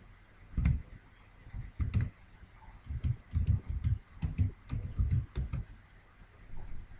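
Computer keyboard being typed, about a dozen separate keystrokes at an uneven pace, each a short click with a low knock.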